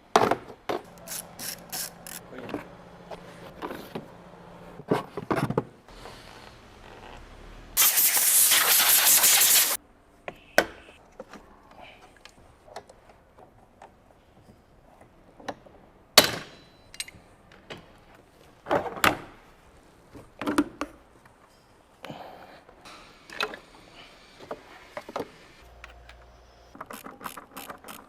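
Hand tools at work on a Mercedes-Benz engine being taken apart to replace a failed timing sprocket: a ratchet wrench clicking, with scattered metal clinks and knocks. About eight seconds in, a loud hiss lasts about two seconds.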